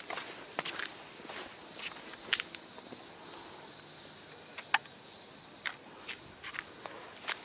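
A steady, high-pitched chorus of insects in the trail vegetation, with scattered short clicks and snaps throughout.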